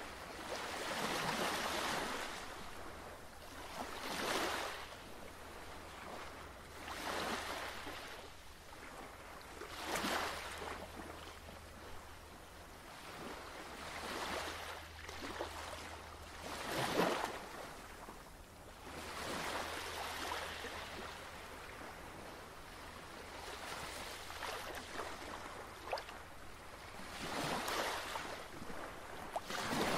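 Ocean surf: waves washing in one after another, each a swell of rushing water every few seconds, with a steady low hum beneath.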